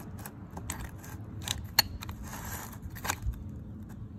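Light metal clicks and a brief scrape from the brake assembly of a Sherpa 25,000 lb winch gearbox as its pinion gear is turned by hand, with one sharper click a little under two seconds in. The owner thinks the brake is slipping.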